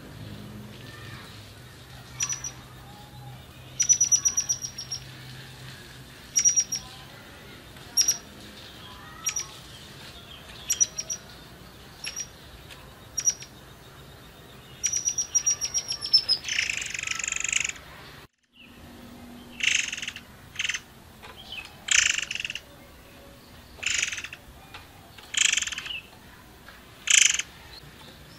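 Caged murai air singing: short, high, thin whistled notes with quick trills about once a second. From about halfway, after a brief break, come louder, rougher calls repeated every second or two.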